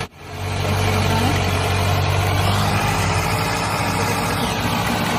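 Steady truck engine sound, a low idling rumble that starts as the toy truck is set moving and runs on evenly.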